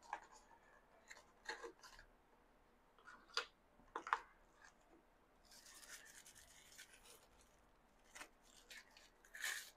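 Faint unboxing handling sounds: short scrapes and taps of cardboard as a small boxed device is worked out of its box insert, then a crinkly rustle of its thin wrapping for a second or two about halfway through, and a brief louder rustle near the end.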